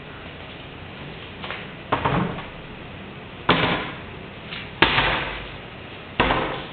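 Footsteps on a tile floor: four steps about a second and a half apart, over a steady hiss.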